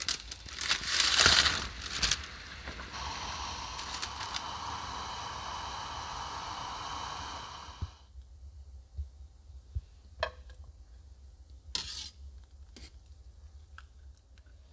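Water bubbling in a steel cooking pot, with a louder rush in the first two seconds, then a steady hiss that stops abruptly about eight seconds in. After that come a few sharp clinks and knocks of a metal skimmer against the pot and frying pan as cooked tortelloni are lifted across.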